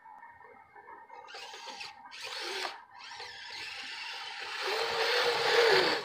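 The Kyosho Blizzard RC snowcat's two brushed electric motors and track drive whining under throttle, with a rushing hiss. The noise comes and goes in the first half and builds steadily after. Later a whine wavering in pitch comes in.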